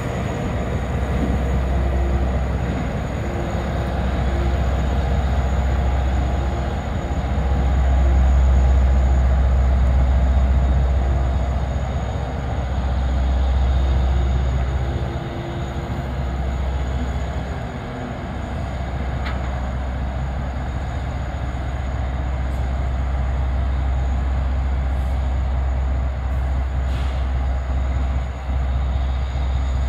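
Diesel switcher locomotive's engine running with a steady, deep rumble as it moves slowly through a rail yard. The rumble swells a few times and eases again.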